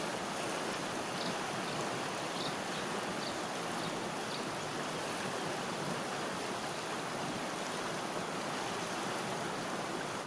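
River water flowing steadily around boulders: an even rushing of current over a rocky bed.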